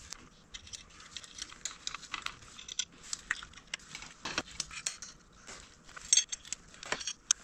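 Light, irregular metallic clicks and ticks of an Allen key working the bolts of a rear brake rotor guard on the caliper bracket, with the hand tool knocking against the metal parts. A brief rustle about six seconds in as a paper towel wipes the bracket.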